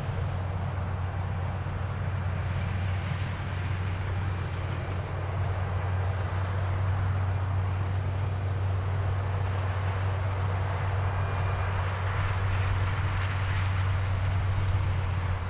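International Harvester 1460 Axial-Flow combine running steadily in corn, a deep engine drone under a broad mechanical hiss. It grows a little louder about six seconds in.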